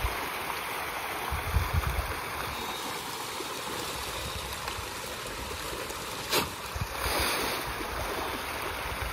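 A dense shoal of farmed fish thrashing and splashing at a pond's surface in a feeding frenzy as feed is thrown in: a continuous churning rush of water. A single sharp click about six seconds in.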